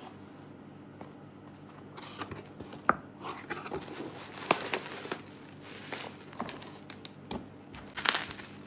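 Hands opening and handling a cardboard shipping box and its packing. Scattered crinkles, rustles and light taps start about two seconds in and grow busier near the end.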